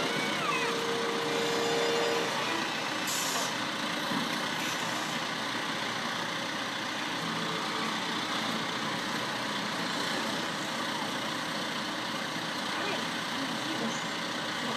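A heavy construction vehicle's engine running steadily, with a short high hiss about three seconds in.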